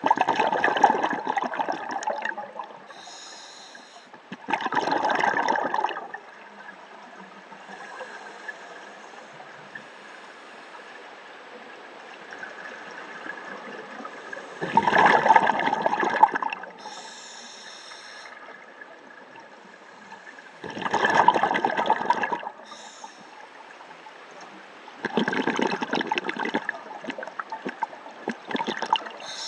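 Scuba diver breathing through a regulator underwater: five loud bursts of exhaled bubbles, each one to two seconds long and a few seconds apart, with short higher hisses between them.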